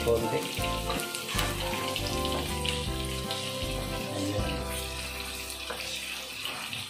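Green beans, carrots and garlic sizzling in a wok as they are stir-fried with a wooden spatula, under background music with held notes.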